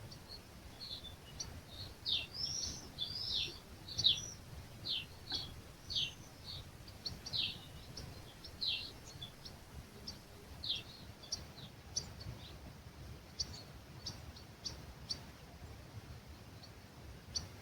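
Wild birds singing at dawn in an olive grove: a quick run of short, arching high chirps for the first ten seconds or so, thinning to scattered short high ticks after that, over a low steady rumble.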